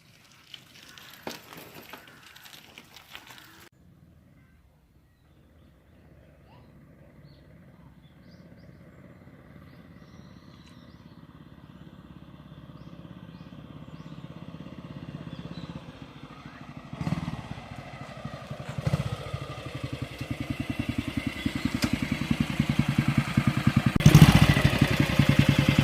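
Kawasaki 250 Meguro SG motorcycle's single-cylinder engine running as the bike is ridden closer, growing steadily louder, with a few quick throttle blips in the last several seconds. It runs evenly, without the misfiring that a new ignition condenser was fitted to cure.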